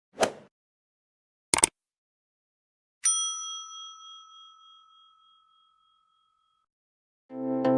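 Subscribe-button animation sound effects: a short swish, a sharp double click like a mouse click, then a bright bell ding about three seconds in that rings out and fades over a few seconds, marking the notification bell being switched on. Electronic music starts near the end.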